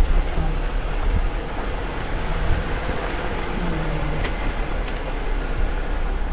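Jeep driving on a rough, muddy off-road trail, heard from inside the cabin: a steady low rumble of engine and tyres.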